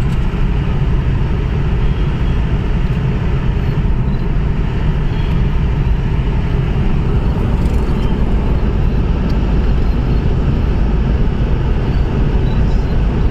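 Steady rumble of a moving road vehicle, its engine and road noise running evenly without change.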